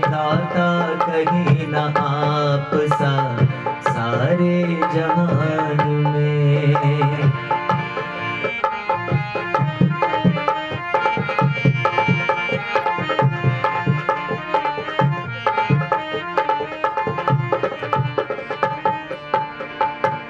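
Harmonium and dholak playing a devotional bhajan: steady held harmonium chords under regular two-handed drum strokes. A voice carries a long, winding melodic phrase over the first seven seconds or so, then the instruments continue alone.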